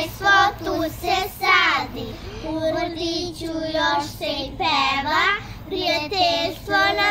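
Several young girls singing a song together.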